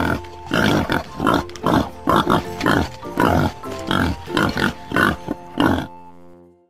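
Malayan tapir giving a rapid run of short, rough sounds, two or three a second, over light background music; they stop near the end.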